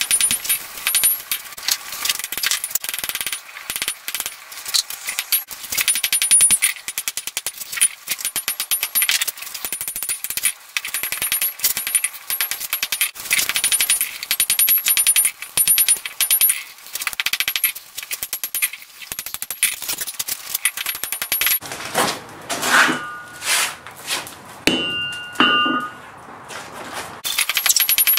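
Hammer blows on a glowing layered steel billet on an anvil, forge-welding the layers: a rapid run of sharp metallic strikes. Some clear ringing tones sound in between about three-quarters of the way through.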